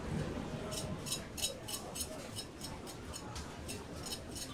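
Rapid, even ticking, about four ticks a second, starting about a second in, over a faint murmur of market background.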